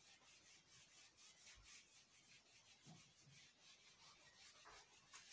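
Faint rubbing of a whiteboard eraser wiping marker off a whiteboard, in quick back-and-forth strokes several times a second.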